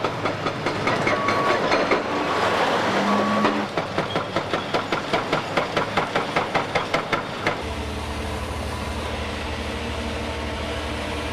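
Heavy demolition machinery at work: a loud clattering and crashing of debris with three short beeps, then a rapid, even pounding about four to five strokes a second. About seven and a half seconds in it changes abruptly to the steady hum of a large engine running.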